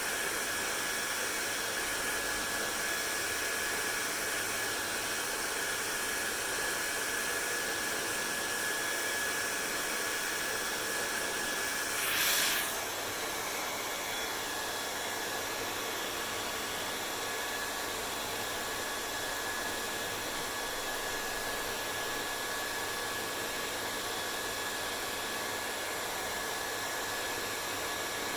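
Hair dryer running steadily: an even rush of blown air with a thin high whine, and one short louder rush about twelve seconds in.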